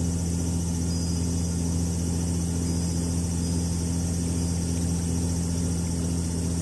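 A steady low electronic drone of several held tones, unchanging throughout.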